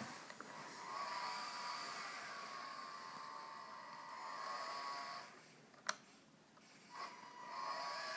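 Electric motor and gearbox of a scale RC Land Rover Defender 110 whining steadily as it drives, pulling a boat trailer. Just past the middle the whine stops for about two seconds, with a sharp click in the gap, then starts again.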